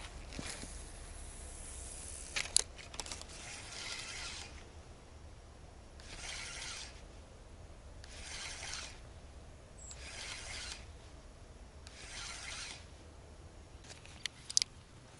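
Spinning reel being cranked in short bursts about a second long, about every two seconds, with pauses between: a stepped jig retrieve, winding in line after a cast. A few sharp clicks come near the start and again near the end.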